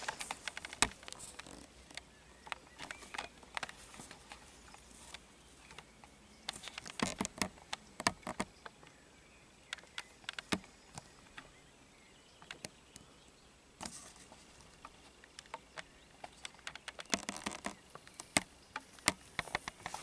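Irregular crackling and clicking of leaves and twigs close to the microphone, in several bursts with quieter gaps between, as the camera and rifle are shifted about inside a hedge.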